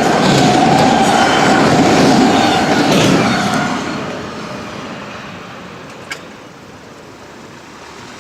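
Freight train cars rolling past on the rails, a steady rumble and clatter that dies away about four seconds in.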